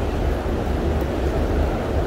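Steady low rumble and wind noise on the microphone from riding an electric scooter, with an even background hubbub.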